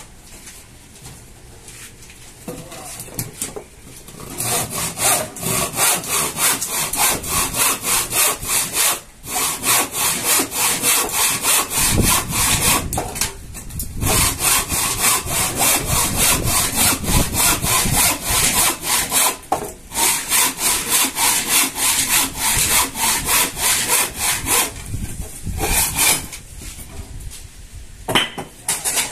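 A handsaw cutting through wood in quick, even back-and-forth strokes. It starts about four seconds in, pauses briefly a few times, and stops near the end.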